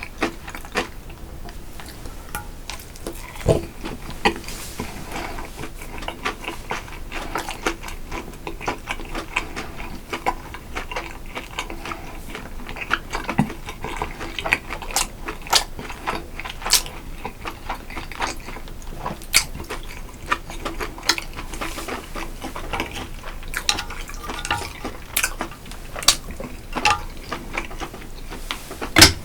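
Eating at a table: utensils clicking and clinking against dishes again and again, mixed with soft liquid sounds from a bowl of noodle soup. There is a louder knock near the end.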